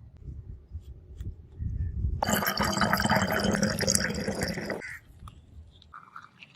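Hot forged steel quenched in water: a loud hissing, bubbling rush starts abruptly about two seconds in, lasts about two and a half seconds and cuts off sharply, over a low rumble.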